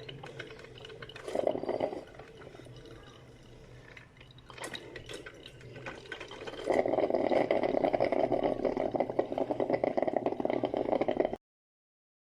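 Hot coffee gurgling and splashing in a Hanabishi HCM-10B drip coffee maker setup. It swells into a louder, dense bubbling crackle about seven seconds in, then cuts off abruptly near the end.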